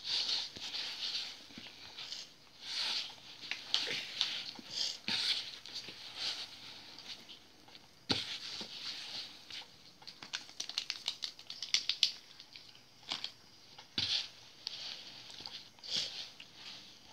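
A hand mixing and rubbing flour into crumbly bread dough in a bowl: repeated swishing, rustling strokes about once a second, with a run of quick clicks in the middle and a couple of sharp knocks.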